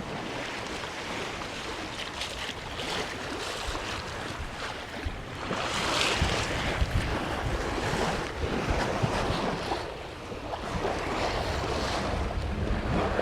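Water rushing and splashing along a sailboat's hull under sail, with wind buffeting the microphone. The rush surges and grows louder about halfway through, eases briefly, then swells again near the end.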